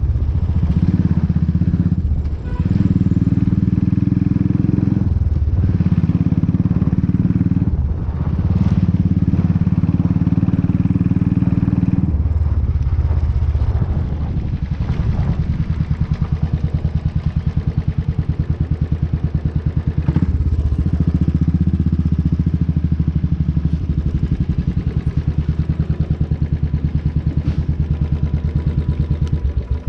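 Motorcycle engine running under way on a rough road. Its note drops out briefly several times in the first twelve seconds, then runs steadier at a lower pitch.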